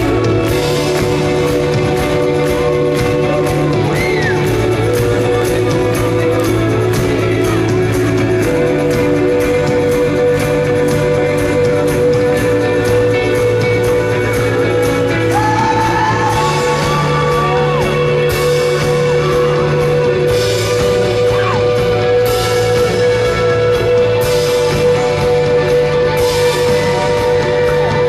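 A rock band playing live with a lead singer: sustained guitar or keyboard notes over a steady bass. Cymbal crashes come in repeatedly in the second half.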